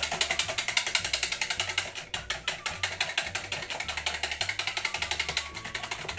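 Hand whisk beating eggs and oil in a plastic jug, clicking rapidly and evenly at about ten strokes a second, over background music with a stepping bass line.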